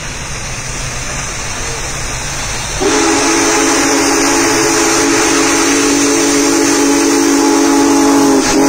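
Union Pacific Big Boy 4014 steam locomotive approaching. The noise of the oncoming train grows steadily louder, then about three seconds in its steam whistle sounds one long, loud blast of several tones together, breaking off briefly near the end and sounding again.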